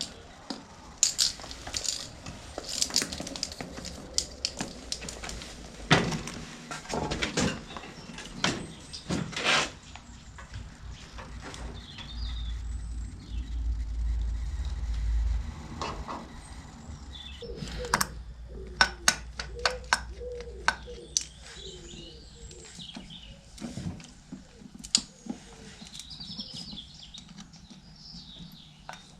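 Scattered clicks and knocks of things being handled, with birds chirping faintly in the background.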